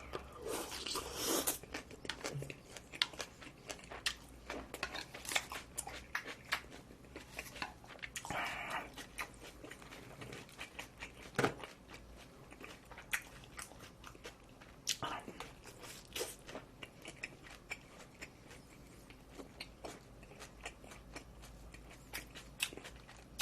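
Close-miked chewing of barbecued meat with chives: many small, irregular crunches and wet mouth clicks.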